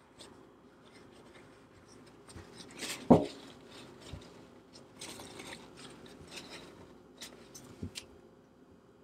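Quiet handling sounds of a paper towel being rubbed and rustled over plumbing fittings, with one sharp knock about three seconds in and a few light ticks near the end.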